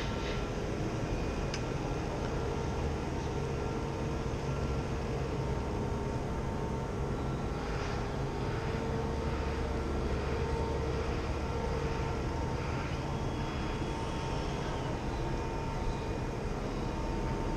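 Steady outdoor city ambience: a constant low rumble with a faint steady hum, and a few faint sounds drifting in and out about eight to thirteen seconds in.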